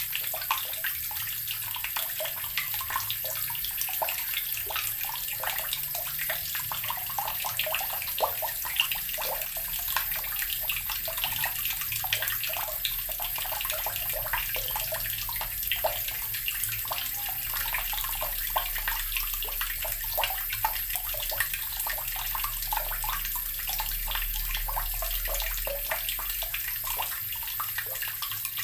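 Water running steadily from a tap, splashing into a basin with a constant patter of small splashes.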